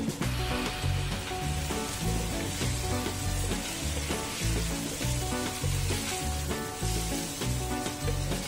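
Chicken feet sizzling as they fry in a nonstick pan, stirred and tossed with two wooden spatulas. Background music with a steady beat plays underneath.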